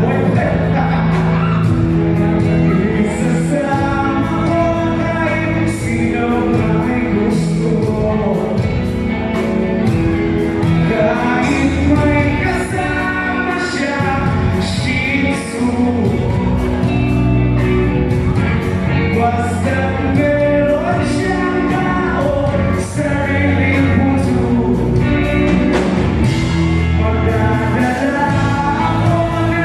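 A song with a singer and band accompaniment, sustained bass notes and regular drum and cymbal hits, at a steady loud level.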